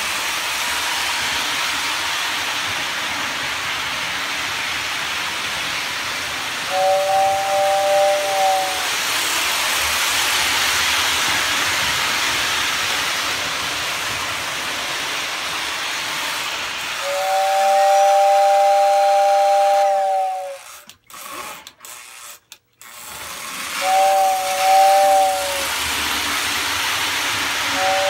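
Lionel #2037 post-war toy steam locomotive running fast on O-gauge track, with a steady rushing running noise, while the air whistle in its 234W tender sounds a two-note chord several times: one blast about a quarter of the way in, a longer blast past the middle, two short toots later, and another starting at the end. Just after the long blast the sound nearly cuts out for a couple of seconds.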